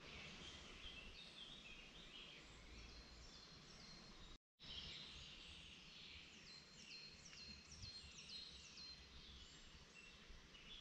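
Faint woodland birdsong over quiet background: small songbirds singing series of quick, high, falling notes. The sound cuts out completely for a moment a little over four seconds in.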